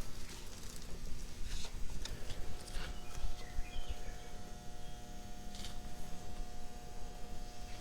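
Scattered light knocks and clinks of hand tools and metal parts being handled, over a faint steady hum.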